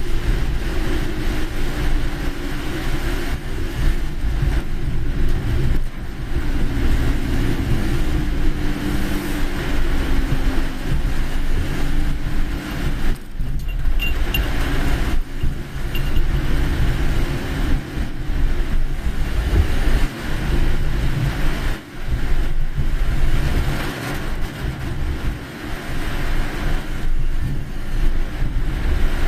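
Car on the move: steady road and engine noise with a heavy low rumble.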